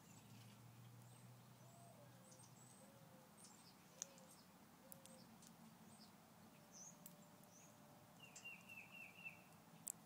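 Near-quiet outdoor ambience with faint, scattered high bird chirps and a short, rapid run of chirps a little after eight seconds in.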